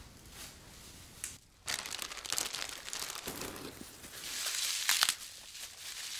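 Fresh curly kale being torn and stripped by hand, crisp crinkling and tearing of the leaves that starts about one and a half seconds in and is loudest a little before the end.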